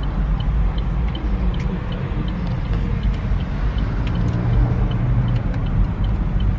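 Car running, heard from inside the cabin as a steady low engine and road rumble, with a faint regular tick about three times a second.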